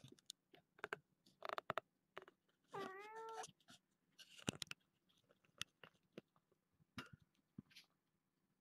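A young kitten meows once, a short call about three seconds in, among faint scattered taps and rustles.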